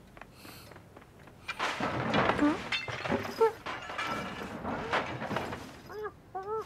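Cartoon sound effects of a cat scrambling onto an armchair and fidgeting on its cushion: a few seconds of rustling and bumping. Near the end come two short cat-like mews.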